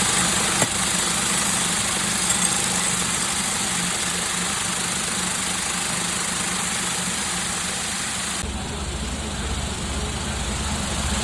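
Steady hum and hiss of running factory machinery. It changes abruptly about eight seconds in, to a deeper rumble with less hiss.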